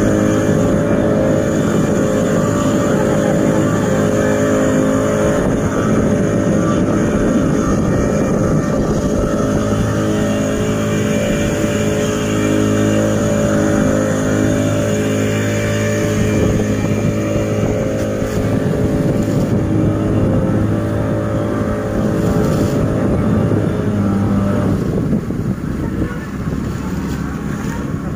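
Glass-bottom tour boat's engine running steadily under way, with the wash of water churning in its wake. The engine note eases off near the end.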